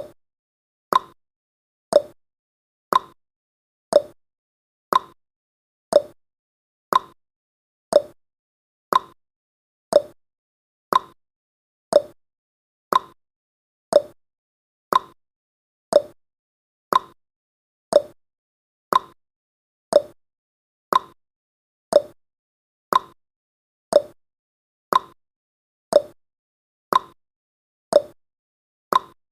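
Countdown timer's ticking sound effect: a short, sharp tick once every second, evenly spaced, with silence between ticks.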